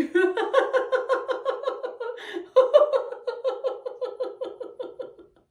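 A woman laughing hard in a high-pitched, rapid run of giggles, the deliberate laughter of laughter yoga. The laughter breaks briefly about two and a half seconds in, then runs on again.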